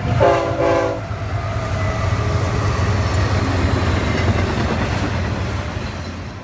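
Freight train: a short blast of a locomotive's multi-chime air horn, then the steady rumble of the train rolling along, dying away at the end.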